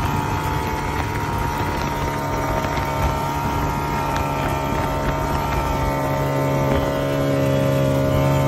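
Ski-Doo snowmobile engine running steadily at cruising speed while the sled rides along a snowy trail, with a little wind on the microphone.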